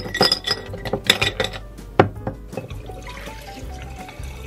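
Glassy clinks and knocks against a glass mason jar, then cold-brewed coffee poured from a pitcher over ice into the jar, starting about three seconds in. Background music plays throughout.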